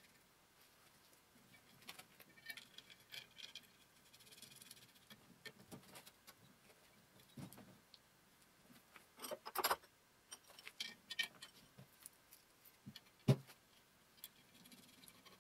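Small metal parts being handled and fitted on a lathe's electric motor and its cast mounting plate: scattered light clinks and rattles, with a denser clatter about nine seconds in and a single sharp knock near the end.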